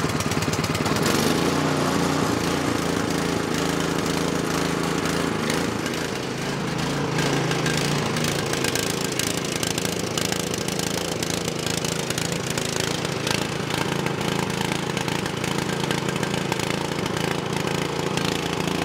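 Ariens Snowtech snowblower's LCT engine running steadily with the choke applied, the only way it will run. Its note changes about a second in.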